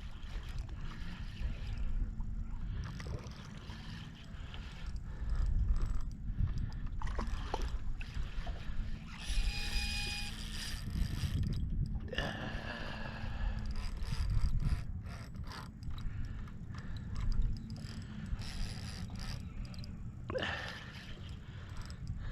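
Fishing reel being wound and its mechanism ratcheting while a hooked queenfish is played in, over a steady low rumble, with a few brief brighter sounds around halfway and near the end.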